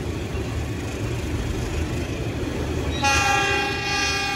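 Steady low rumble of a train running. About three seconds in, a locomotive horn starts suddenly and sounds one long blast.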